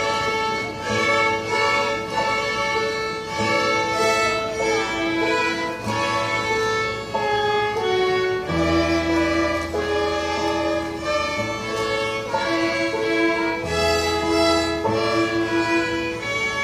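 Instrumental music led by violin over a bass line, with sustained notes changing every second or so.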